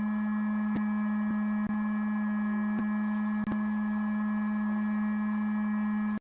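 Steady hum from the small DC motor of a homemade SMD hot-air heating machine running at a constant speed, with faint ticks now and then.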